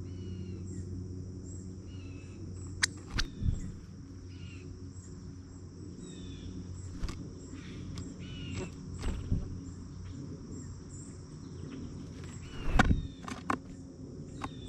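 Short bird chirps now and then over a steady high insect drone, with a few knocks and thumps, the loudest near the end.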